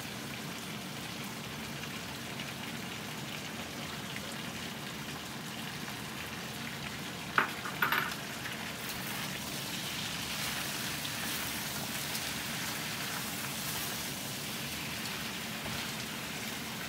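Lobster pieces sizzling in a hot wok with oyster sauce as they are stir-fried, a steady frying sizzle that grows a little louder past the middle. About seven to eight seconds in, the stirring utensil knocks sharply against the wok a few times.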